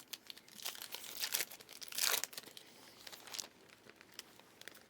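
Foil trading-card pack wrapper being crinkled and torn open, in irregular crackles with the loudest tear about two seconds in.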